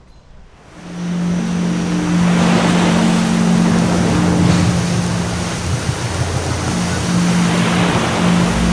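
Ocean surf washing on a beach, a steady rushing sound that comes in about a second in, with a steady low hum underneath.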